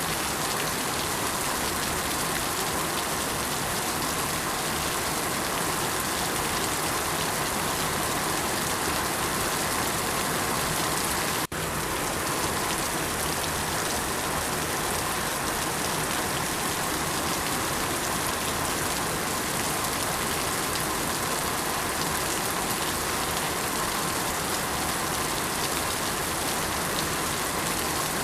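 Steady heavy rainfall, an even hiss of drops falling on surfaces, with a momentary dropout about eleven seconds in.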